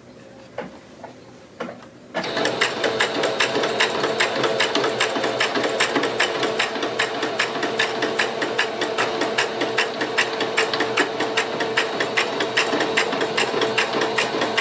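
Electric sewing machine starting about two seconds in and running steadily while stitching. It gives rapid, even needle clicks over a steady motor hum. A few small clicks come before it starts.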